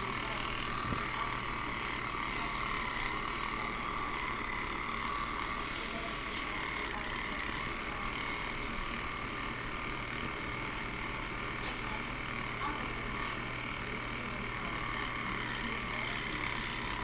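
Electric toothbrush running with a steady high buzz, its pitch wavering slightly.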